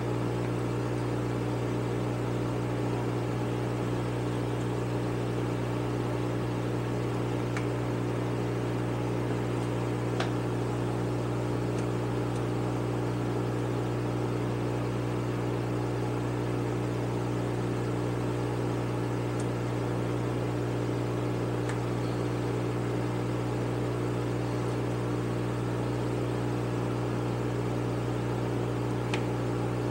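Steady electric machine hum with an even whir, with a few faint clicks from a hand screwdriver turning small carburetor screws.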